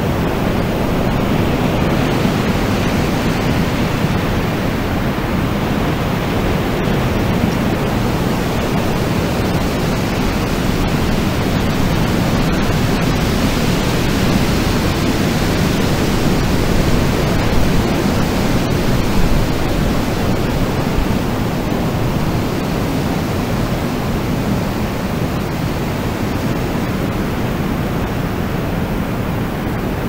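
Steady rushing wind, an unbroken noise that swells a little about halfway through.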